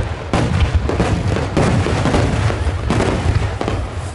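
A barrage of aerial firework shells bursting, a dense run of deep booms overlapping with no let-up, strongest in the low end.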